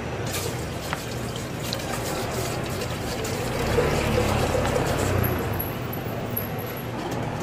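Water poured from a plastic bottle into a metal kettle, filling it; the pouring eases off about two-thirds of the way in.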